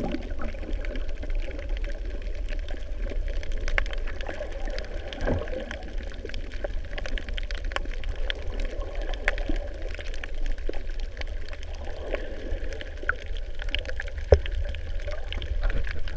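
Underwater ambience on a coral reef, heard through a submerged camera: a steady low rumble and water hiss, scattered with sharp clicks and crackles, one louder click about fourteen seconds in.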